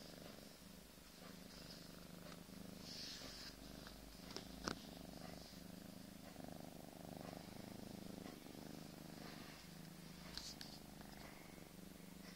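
Domestic cat purring right at the microphone, a quiet low rumble that swells and eases with each breath, every one to two seconds. A sharp click sounds about halfway through, and a few fainter ones near the end.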